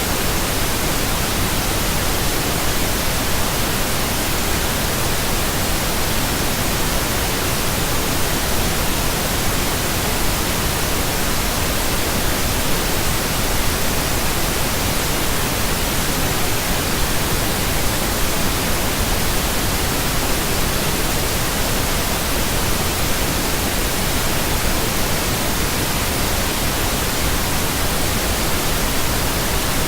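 Synthetic pink noise: a steady, unbroken hiss spread evenly across the range, with no tones, pulses or changes.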